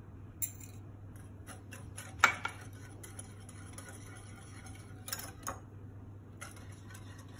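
Metal wire whisk clicking and tapping against a glass bowl while beating a runny egg, sugar and melted butter mixture, in irregular strokes with one sharper clink about two seconds in.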